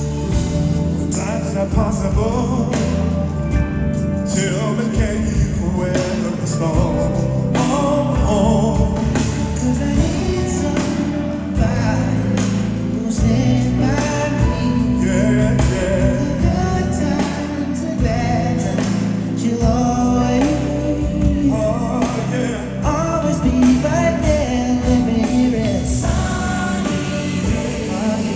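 Male R&B vocal group singing live over a band, heard in an arena.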